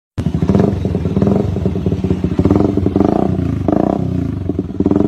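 An engine running with a rapid, even pulsing, its pitch and loudness swelling and easing repeatedly as if being revved; it cuts in suddenly just after the start.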